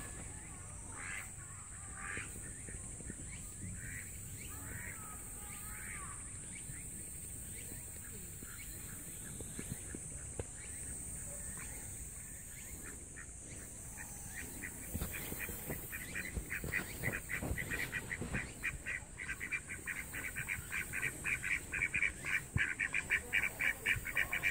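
Ducks quacking: a few scattered calls at first, then from about halfway a fast run of quacks, several a second, growing louder toward the end.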